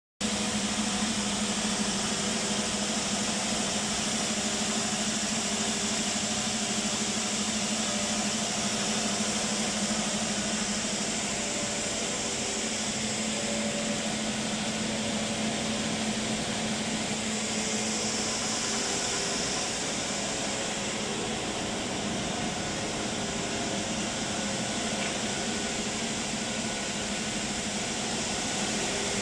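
Coated-paper slitter rewinder running steadily as it slits the paper web into narrow rolls: a constant mechanical hum under an even hiss.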